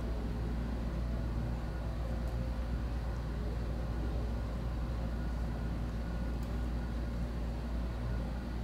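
Steady low background rumble with no distinct events, even in level throughout.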